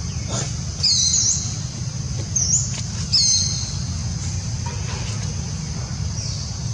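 Three short, high-pitched chirping calls from an animal, about a second in, at two and a half seconds and just after three seconds. They sound over a steady high hiss and a low rumble of outdoor background.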